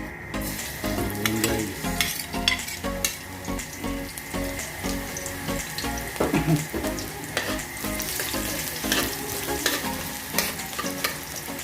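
Garlic frying in hot cooking oil in a pan: a steady sizzle, with repeated knocks and scrapes of a spatula stirring against the pan.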